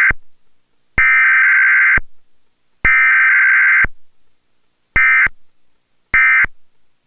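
Emergency Alert System SAME data bursts for a Required Weekly Test, the harsh two-tone digital buzz of the EAS header. The tail of one burst and two more of about a second each are followed by two short end-of-message bursts about a second apart.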